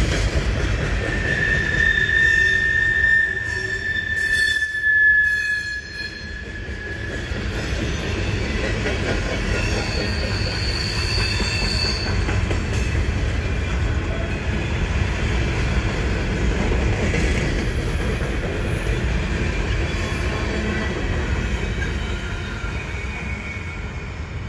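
Freight train's container cars rolling past with a steady low rumble, and high steel-wheel squeals rising over it: a strong one in the first few seconds and a higher, shorter one around ten seconds in. The sound eases off near the end as the last cars pass.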